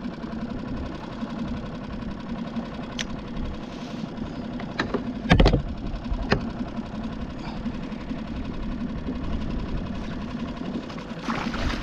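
A boat's outboard motor idling steadily. A loud knock comes a little under halfway through, then a smaller one a second later.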